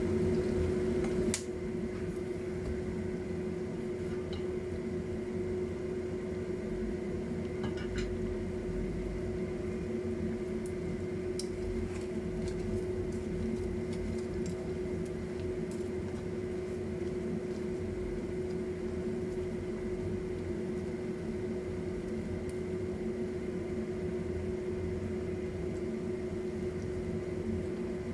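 A steady mechanical hum with one constant mid tone, over lumpia shanghai (spring rolls) deep-frying in a pan of oil, with scattered light crackles and clicks. The sound is louder for about the first second, while oil is poured into the pan.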